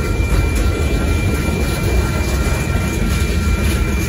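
Freight train cars rolling steadily past over the crossing: a continuous low rumble and rush of wheels on rail. A thin, steady high tone sits over it.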